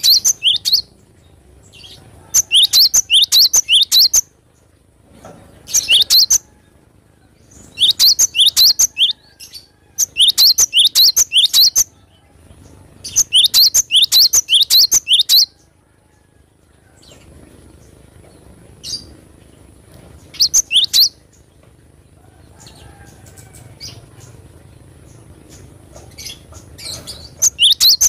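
Cinereous tit (gelatik batu) singing in repeated bursts. Each burst is a fast run of sharp, evenly spaced high notes lasting one to two seconds. There is a quieter pause with only a few faint notes past the middle before the bursts resume near the end.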